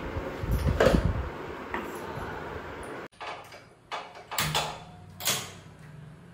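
A steel mixer-grinder jar is handled, giving a heavy knock and rattle about a second in. Then comes a series of sharp clicks as a gas stove's knob is turned and a burner lights.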